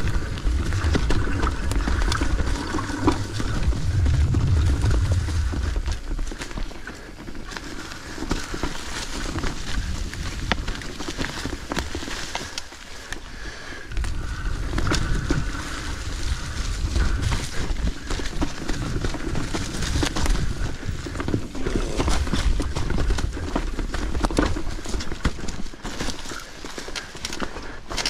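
Mountain bike ridden over leaf-covered, rocky singletrack: tyres crunching through dry leaves, with irregular clicks and knocks from the bike rattling over bumps and a low rumble throughout.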